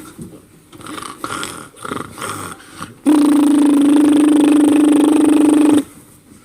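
A man making vocal sound effects into a microphone for a mimed shower: a few quieter noises, then about three seconds in a loud, steady, buzzing hum held for nearly three seconds and cut off sharply.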